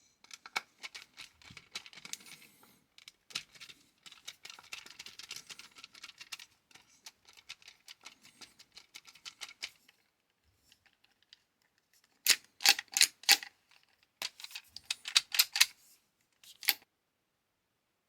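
Plastic-and-metal mechanism of an autoloading multi-bit screwdriver being worked by hand, its bit magazine clicking and clacking. A long run of light rapid clicks gives way to a few loud sharp clacks in quick groups near the end.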